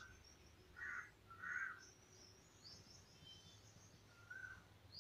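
Faint chirping of small birds: two short chirps about a second in, another near the end, with thin high twitters between.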